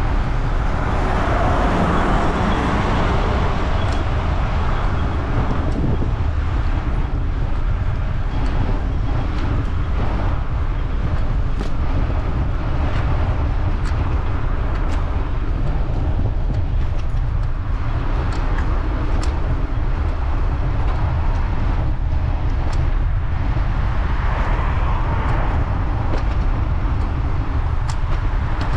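Wind rushing over the microphone of a road bike ride, a constant deep rumble, with motor traffic passing on the road that swells and fades several times, most strongly in the first few seconds.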